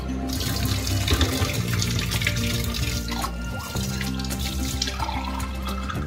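Kitchen tap running water into a drinking glass, the stream splashing and spilling over into a stainless steel sink. Background music with sustained low notes plays underneath.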